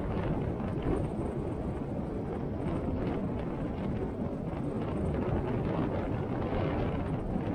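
Storm wind rushing steadily around a moving cable car cabin, a dense low rush with no distinct knocks or tones.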